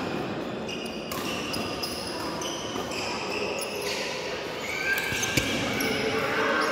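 Badminton doubles rally in an echoing sports hall: a few sharp racket strikes on the shuttlecock, and many short squeaks of shoes on the court floor.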